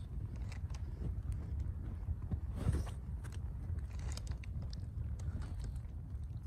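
Wood campfire crackling with irregular small pops over a steady low rumble, with one louder crunch about two and a half seconds in.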